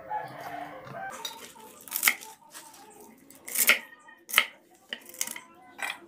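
Kitchen knife chopping mustard-green stems on a wooden cutting board: about five sharp, separate knocks of the blade on the board, unevenly spaced, with softer handling of the greens at the start.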